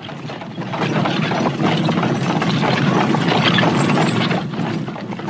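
Sound effect of a horse-drawn cart passing: hooves and wooden wheels in a dense, irregular clatter that grows louder, holds, and fades near the end.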